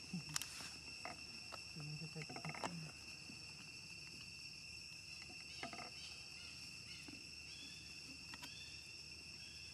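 Steady drone of insects, two high even tones that hold unchanged throughout. A brief voice comes in about two seconds in, and a few short faint chirps come near the end.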